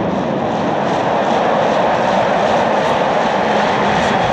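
A packed football stadium crowd making a loud, steady din.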